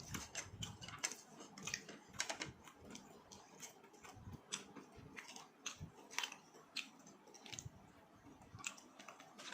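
Close-up chewing and biting of fried chicken: irregular sharp clicks and smacks of a mouth eating, several a second.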